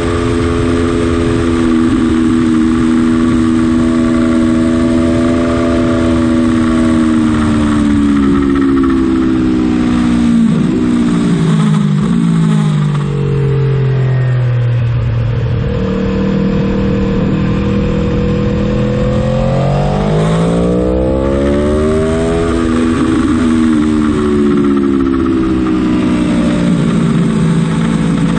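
Aprilia Tuono motorcycle engine at speed on track: held at high revs, then the revs fall steadily as the bike slows for a corner, and climb again in steps as it accelerates back out through the gears.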